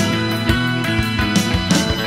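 Punk/indie rock recording: a band playing electric guitar chords over a steady drum beat.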